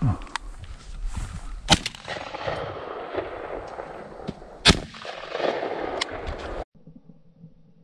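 Two shotgun shots about three seconds apart from a Benelli Super Black Eagle III semi-automatic shotgun fired at doves, over the rustle of the shooter moving.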